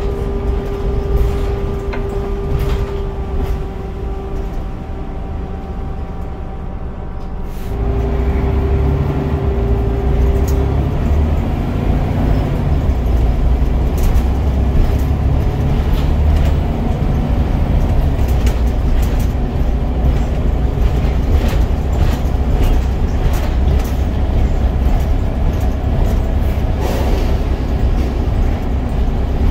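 Scania DC9 9.0-litre diesel of an East Lancs Omnidekka double-decker bus, heard from the lower-deck saloon. It runs quietly with a steady whine at first, then about eight seconds in the engine takes up load and grows louder, holding a heavy, steady drone with knocks and rattles from the bodywork.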